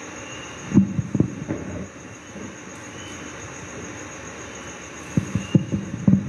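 Steady background hiss with two clusters of dull low knocks and thuds, one about a second in and another near the end.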